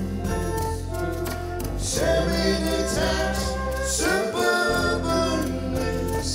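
Live band playing a pop song: sung vocals and harmonies over acoustic guitar, keyboard, bass and drums.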